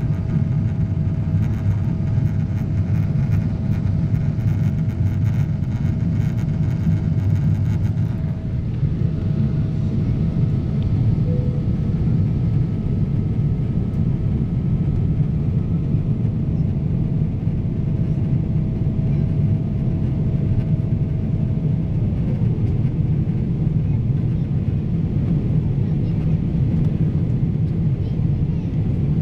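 Steady cabin noise of a jet airliner climbing after takeoff: a deep, even rumble of engines and airflow, with a faint steady whine that stops about three-quarters of the way through.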